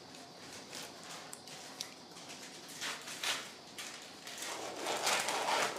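Rustling and handling noise from surgical materials being moved: a couple of short bursts about three seconds in and a longer, louder one near the end.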